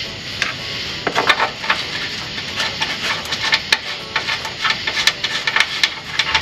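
Irregular metal clinks and knocks of hand tools and fasteners as a skid plate is refitted under a truck, with a quick cluster of taps about a second in.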